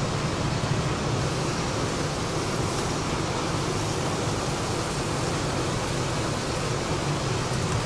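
Steady rushing hum of kitchen ventilation running over a charcoal grill, unchanging throughout.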